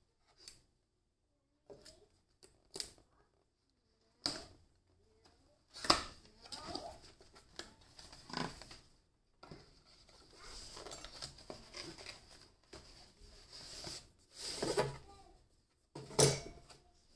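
A cardboard product box being cut open and unpacked by hand: cardboard scraping and rustling, with several sharp knocks as the box and its contents are handled and set down on a wooden table.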